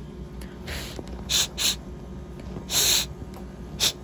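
A person's breath: several short, breathy puffs of air close to the microphone, with a longer one about three seconds in.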